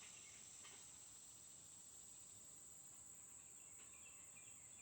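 Near silence, with a faint, steady, high-pitched drone of insects.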